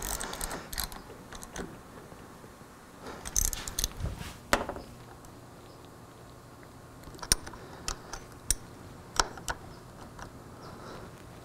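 A hand wrench clicking and clinking on motorcycle handlebar clamp bolts as they are tightened: a scattering of single sharp metal clicks with light scrapes between them.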